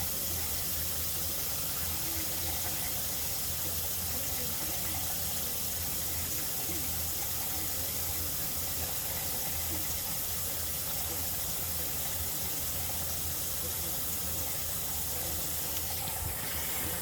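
RV faucet running wide open with hot and cold both full, water pouring steadily into the sink.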